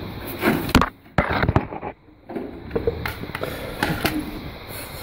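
Plastic tub knocking and scraping on a hard floor while a dog with its head stuck inside it moves about, in irregular knocks and scrapes with handling noise.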